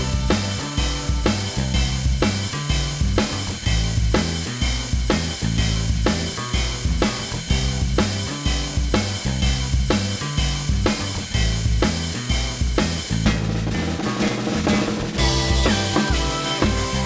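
Background music with a steady drum-kit beat, about two beats a second, over a bass line.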